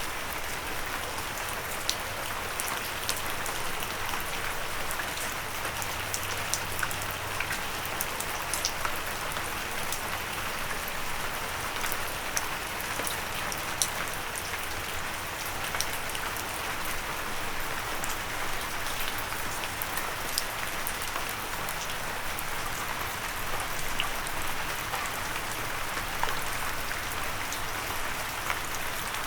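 Steady rain with many sharp drops ticking on a windowsill.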